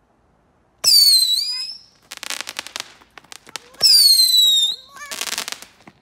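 Handheld whistling fireworks going off twice. Each starts with a sudden shrill whistle that falls slightly in pitch for about a second, then breaks into a burst of crackling.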